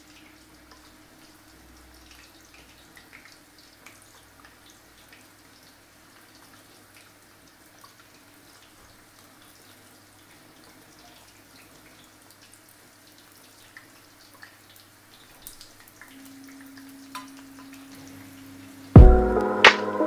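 Pork hock deep-frying in a pan of oil: a faint, steady sizzle with scattered small pops and crackles. Near the end, loud music starts suddenly.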